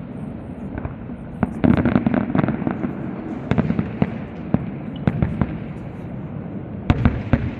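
Aerial fireworks display: shells bursting in an irregular string of sharp bangs, busiest about two seconds in and again near the end.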